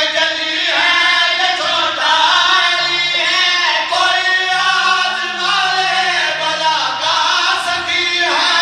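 A group of men singing a devotional qaseeda together into a microphone, their voices loud and sustained in a drawn-out, wavering melody.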